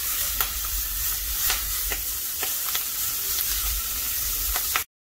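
Bok choy and other greens sizzling in butter in a nonstick frying pan while a spatula stirs them, with irregular light taps and scrapes of the spatula against the pan. The sound cuts off abruptly near the end.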